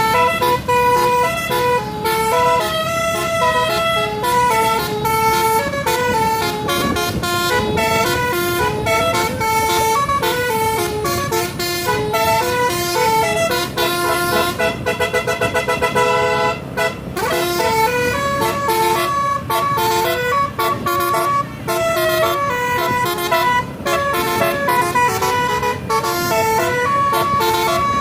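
Basuri telolet multi-tone horn on a tour bus playing a tune: a run of held notes stepping up and down in pitch, broken about halfway through by a fast stutter of short toots.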